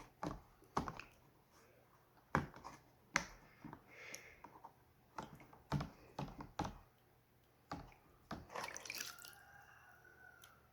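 Swiss Army knife tools being worked open and shut in a bowl of warm water: irregular drips, splashes and small clicks. The tools are being flushed to clear dirt and old oil out of the hinges.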